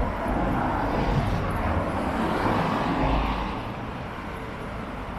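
A motor vehicle passing on a city street, its rushing noise swelling for the first three seconds or so and then easing off.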